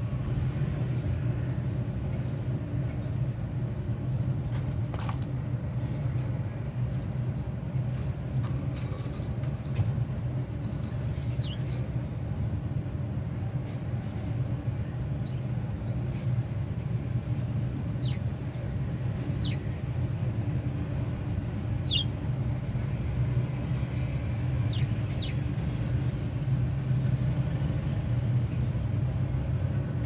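A steady low rumble with a handful of short, high, downward-sliding budgerigar chirps scattered through it, most of them in the middle and later part.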